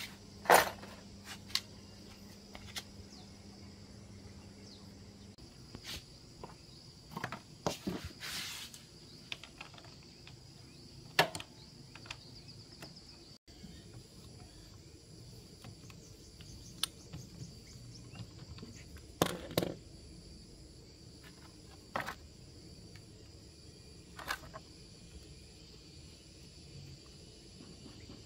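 Scattered short metal clinks and knocks of hand tools, wrenches and sockets handled from a toolbox and used on a motorbike engine, about a dozen in all, the sharpest about half a second in. Under them runs a steady faint high chirring of insects.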